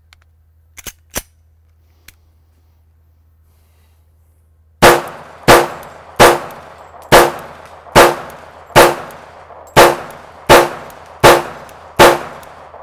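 Heckler & Koch USP .45 pistol: a couple of small metallic handling clicks about a second in, then from about five seconds in ten shots fired at a steady pace, roughly one every three-quarters of a second, each with a brief decaying tail.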